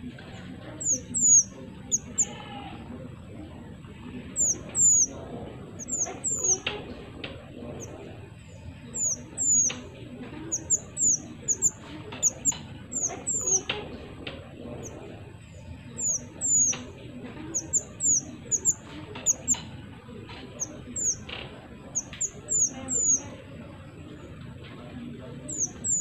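A caged mantenan songbird calling: very high, sharp chirps that each drop in pitch, in quick runs of two to four that repeat about every second.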